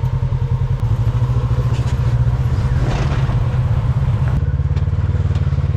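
Off-road vehicle engine running steadily at low revs, a deep, evenly pulsing rumble.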